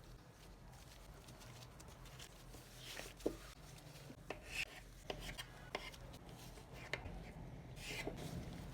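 Kitchen handling sounds: light rubbing of hands or utensils on a work surface, with a few short soft knocks spread through the middle, over a steady low hum.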